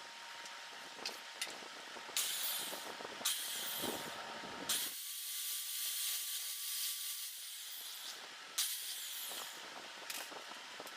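Electric drill running and boring a hole through a carbon fibre fender extender: a hissy whir with a faint motor whine that steps up slightly about halfway through, and several louder spells as the bit bites.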